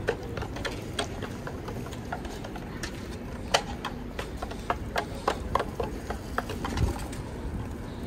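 Outdoor city ambience: a steady low rumble with many irregular sharp clicks and knocks, the loudest about three and a half seconds in.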